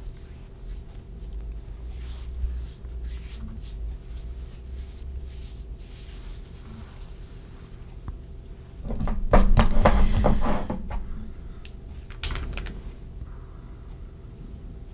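Quiet handling noises and faint rustles. About nine seconds in comes a louder cluster of knocks and clatter lasting about two seconds, with a shorter one a few seconds later, as small skincare bottles are handled and opened.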